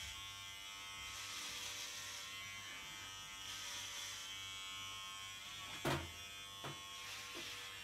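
Corded electric hair clippers buzzing steadily while trimming hair on a head, with a sharp knock about six seconds in and a lighter one shortly after.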